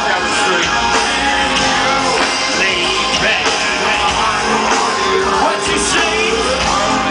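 Live hip-hop band music played loud through a large outdoor festival PA, heard from inside the crowd, with voices singing over it.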